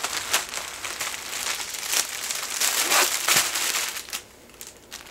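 Thin plastic packaging crinkling and rustling as a folded cat tunnel is pulled out of its wrapper by hand, dying down about four seconds in.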